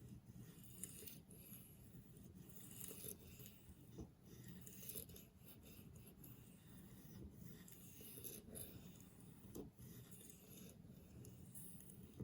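Faint repeated strokes of a knife blade drawn across an ultra-fine sharpening stone: a soft, quiet rasping that swells and fades with each pass, with a few light clicks of the blade.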